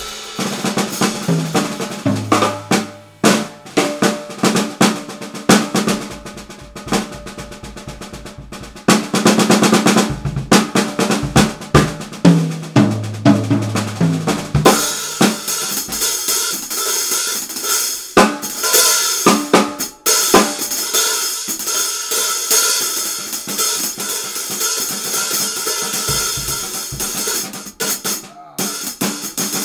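Acoustic drum kit played freely in a busy groove, with fast snare strokes and rolls, bass drum, and pitched tom hits. From about halfway through, ringing cymbals wash steadily over the drums.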